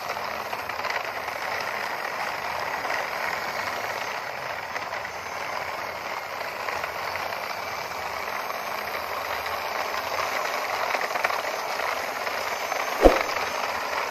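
Plastic toy dump trucks' wheels rolling over rough concrete: a steady gritty rolling noise, with one sharp click near the end.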